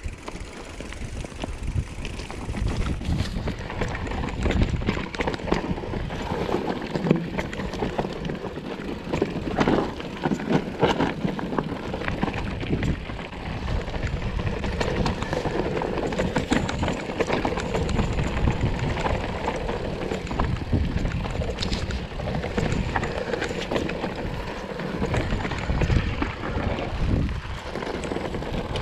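Mountain bike rolling down a rocky, gravelly trail: tyres crunching over loose stones and the bike rattling with constant knocks. It builds over the first few seconds as the bike gets going.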